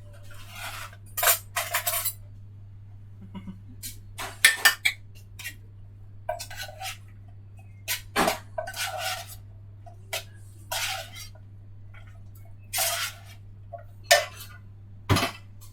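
Dishes and cutlery being handled, clinking and scraping in about a dozen irregular clatters over a steady low hum.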